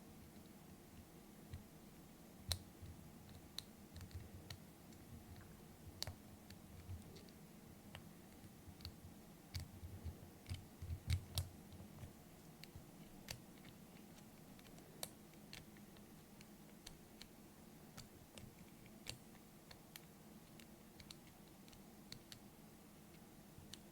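Small, irregular metallic clicks of a lock pick and tension wrench working the pins inside a doorknob's pin-tumbler lock, with a quick cluster of louder clicks and soft knocks about halfway through.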